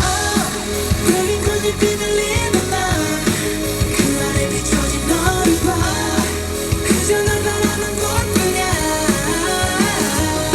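A K-pop song with male vocals over a steady beat and heavy bass, played live through a concert sound system.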